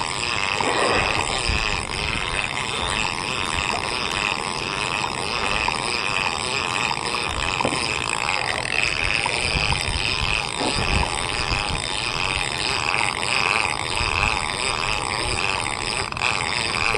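Steady drone of an outrigger boat's engine under way, with wind and water, while a conventional trolling reel is cranked steadily to wind in a hooked fish.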